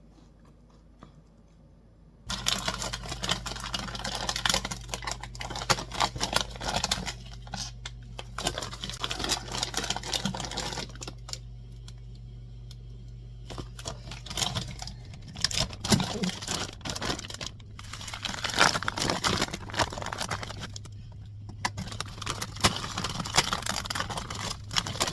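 Kitchen handling sounds: packaging crinkling and tearing with rapid clicks and clatter over a steady low hum. They start abruptly about two seconds in.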